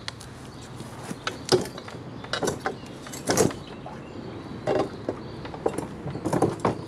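Scooter's centre stand and body clunking and rattling in a series of irregular metal knocks as the rear of the scooter is pressed down and rocked. The owner blames this stand for the rattle, because it sits loose against the variator cover.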